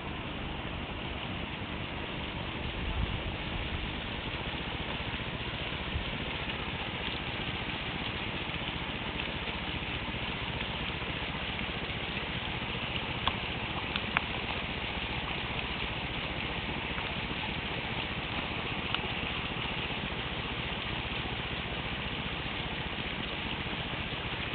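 Running water, a steady even rush, with a few brief clicks around the middle.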